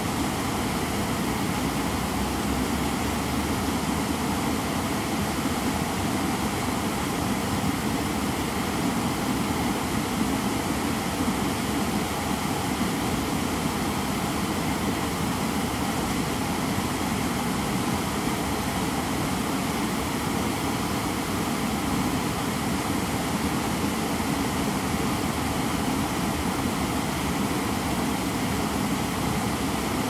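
Small waterfall pouring over a rock ledge into a shallow pool: a steady, even rush of falling water.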